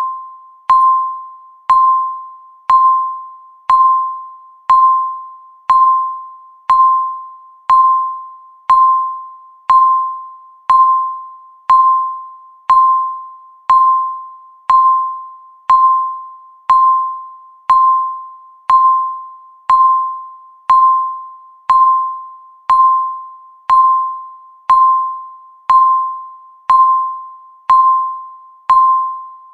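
Countdown-timer beep: one short, mid-pitched electronic ding each second, sharp at the start and dying away before the next, each marking one second ticked off the count.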